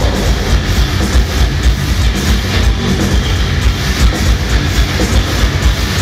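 Progressive metalcore band playing live and loud: a heavy section driven by rapid bass-drum kicks and chugging low guitars.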